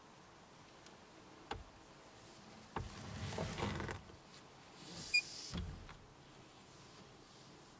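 Close handling noises: sharp clicks about one and a half and three seconds in, then about a second of rustling with a brief whir, followed by a short high blip and a knock.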